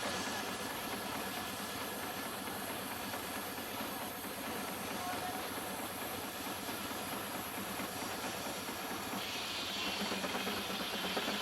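Steam engine running a sawmill, with a steady hiss of steam. A higher hiss comes in about nine seconds in.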